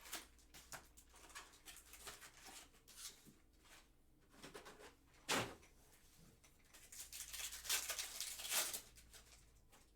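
Packs of 2022 Donruss Optic football cards being opened and handled: foil wrappers crinkling and tearing, and cards rustling, with one sharp rip about five seconds in and denser crinkling near the end.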